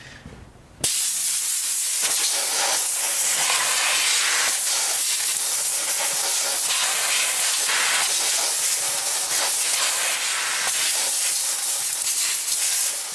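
Compressed-air blow gun hissing as it blasts old brake dust out of an air disc brake caliper. It starts abruptly about a second in and holds steady, swelling a little as the nozzle moves.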